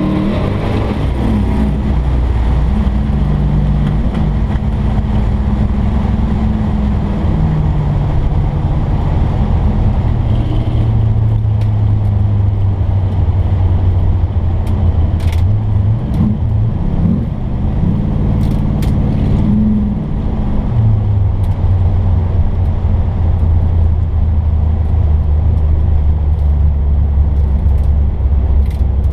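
Hot rod car engine running steadily. Its pitch steps up and down several times, with short revs about sixteen seconds in and again around eighteen to twenty seconds.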